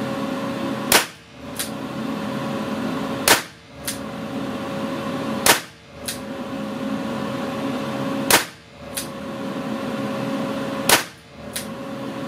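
Weihrauch HW5 T revolver firing .17 HMR cartridges from its .22 WMR cylinder: five single shots about two to three seconds apart. Each sharp crack is followed by a fainter crack about half a second later.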